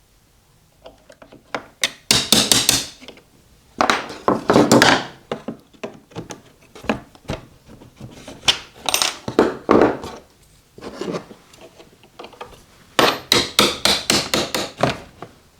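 A steel hinge pin being driven out of a socket-set case's hinge with hammer taps, in several runs of quick sharp taps; the last run, near the end, is the fastest and longest.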